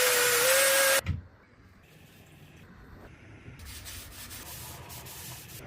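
Woodworking on wood: a loud hissing tool with a steady whine for about the first second, cutting off sharply, then quieter rubbing and scraping.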